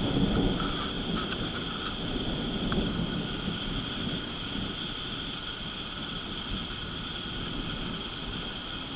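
Distant thunder rumbling low and dying away over the first few seconds, over a steady high-pitched background drone.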